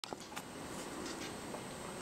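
Quiet room tone with a faint steady high whine and a few soft clicks in the first half second.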